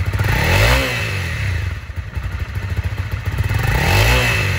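2020 Honda CRF250L's fuel-injected, liquid-cooled single-cylinder engine idling, blipped twice on the throttle: the pitch rises and falls about a second in and again near the end.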